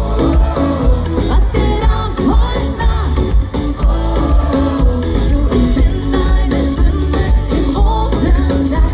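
Live Schlager pop band music through a loud PA, with a woman singing over a heavy bass beat.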